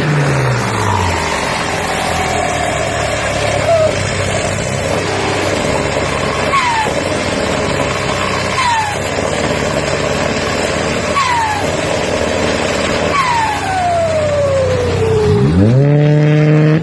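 Loud car engine and exhaust. The revs drop at the start, a run of short falling whines comes about every two seconds, and near the end the engine revs sharply up and holds high.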